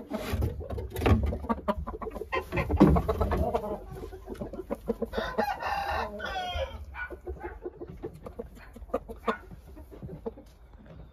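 Shamo game rooster crowing once, a pitched crow of about a second and a half starting about five seconds in, with clucking. Before it come several sharp knocks and scuffles, and softer short calls and clicks follow.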